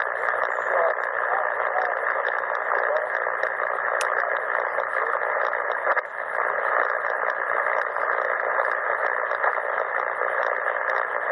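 CommRadio CR-1a receiver's speaker giving out steady band static on 7.272 MHz in the 40-metre amateur band. The hiss is held to a narrow voice-width passband, with no station coming through clearly.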